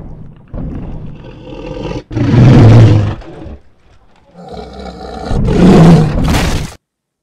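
Tyrannosaurus rex roar sound effect: two long, loud roars, one about two seconds in and one near the end, with lower growling before and between them.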